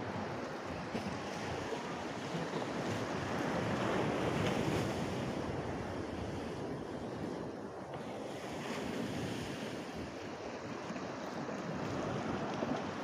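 Steady rushing of small waves washing against the shore of a river mouth, with wind buffeting the microphone; it swells a little about four seconds in.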